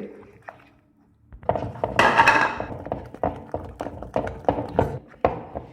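Brownie batter being mixed quickly in a bowl, the utensil knocking and scraping against the bowl in a run of irregular thunks that starts about a second in.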